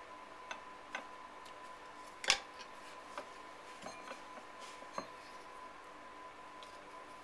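Scattered light clicks and taps of a potter's hand tools and a soft clay bowl being handled on the bench, with one sharper knock a little past two seconds in.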